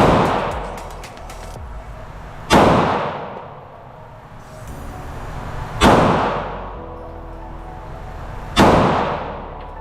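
Glock 48 9mm pistol fired four times in slow, deliberate shots about three seconds apart. Each is a sharp crack followed by a long echoing tail in the enclosed range.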